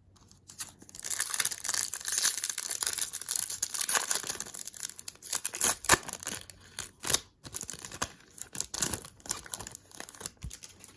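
Foil trading-card pack wrapper being torn open and crinkled, a crackly rustle with many sharp snaps, stopping shortly before the end.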